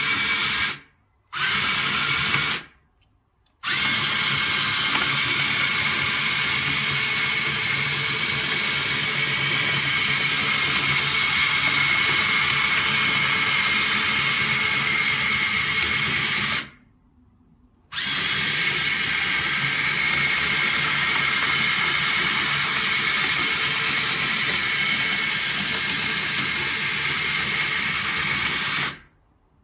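Electric drive motors of a 3D-printed four-track RC crawler running at fast driving speed, a steady high whine. There are two short bursts at the start, then two long runs of about thirteen and eleven seconds, each stopping abruptly with a short silence between.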